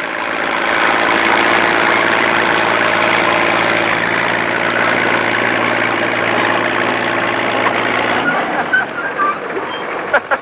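Six-cylinder engine of an International Harvester T-35 crawler tractor running steadily as the tractor drives in. The steady engine tone drops away about eight seconds in.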